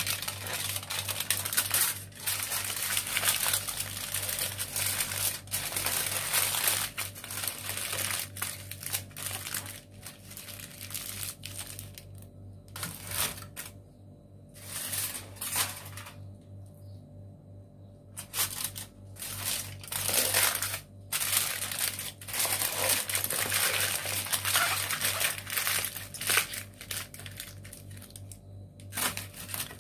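Aluminium foil crinkling and crumpling as it is handled and folded around a chicken breast, in irregular bouts with short pauses, over a steady low hum.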